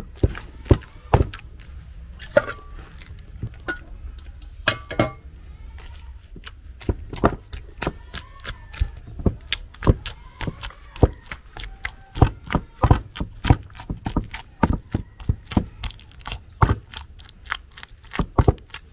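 Wooden pestle pounding plantain mash in a wooden mortar: a run of dull wooden thuds, about two a second, uneven in strength.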